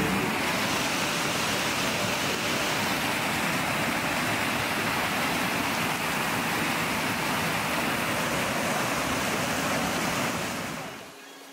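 Steady rushing of a fast mountain river, fading out near the end.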